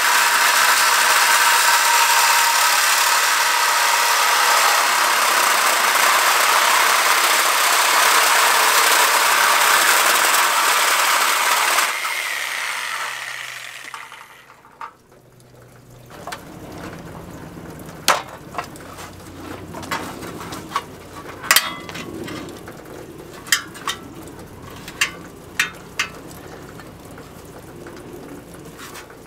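A DeWalt reciprocating saw runs steadily as it cuts through an aluminum bike frame tube, then winds down and stops about twelve to fourteen seconds in. After that come a series of sharp clicks and knocks as the metal frame is handled and pulled at.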